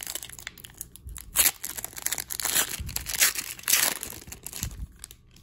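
Foil wrapper of a trading-card pack being torn open and crinkled by hand: irregular crackling tears, the sharpest about a second and a half in and again between three and four seconds, dying down near the end.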